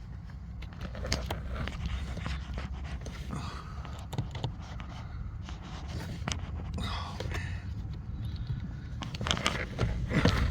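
Clicks and scrapes of hands working at the AC condensation drain under the dashboard, with a few breathy bursts of air blowing through the drain, over a steady low hum.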